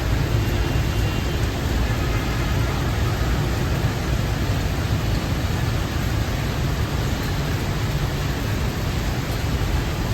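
Steady wash of heavy rain, with a deep, even rumble underneath.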